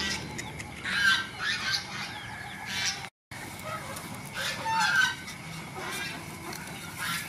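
Domestic geese honking repeatedly, short calls coming every second or so, with a brief cut to silence about three seconds in.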